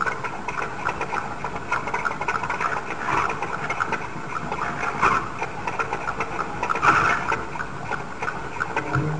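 VéloSoleX moped's small two-stroke engine running with a fast, steady buzz, growing louder for moments about three, five and seven seconds in.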